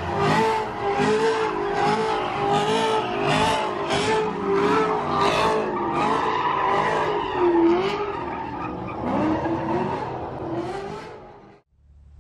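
Car tyres squealing and skidding as a car spins donuts, with the engine revving under load. The noise surges about twice a second and cuts off abruptly near the end.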